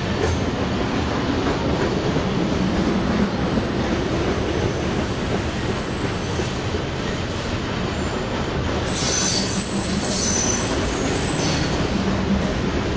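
Freight cars of a CSX mixed manifest train rolling past: a steady rumble and rattle of steel wheels on rail. About nine seconds in, a high-pitched wheel squeal rises over it for a couple of seconds.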